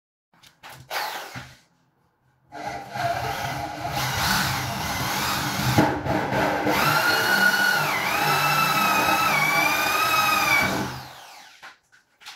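Power drill boring a lock hole into a wooden door: a brief spurt about a second in, then steady drilling for about eight seconds, the motor's whine dipping in pitch near the end as the bit bites into the wood.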